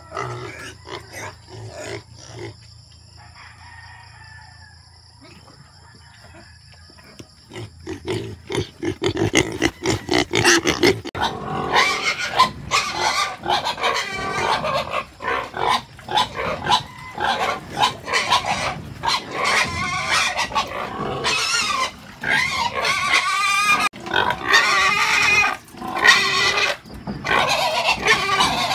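A pen of seven-week-old weaner pigs squealing and grunting, many at once. The squealing is fairly quiet for the first several seconds, then from about eight seconds in becomes a loud, continuous chorus.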